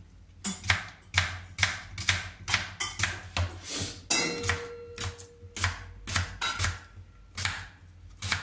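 Kitchen knife chopping an onion on a plastic cutting board: a steady run of sharp knocks, about three a second.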